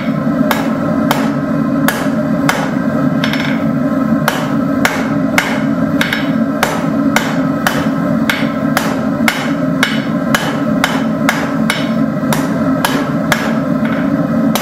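Hammer striking a hot 5/16-inch steel rod on an anvil, about two blows a second, drawing out a taper. Under the blows runs a steady low roar from the lit forge.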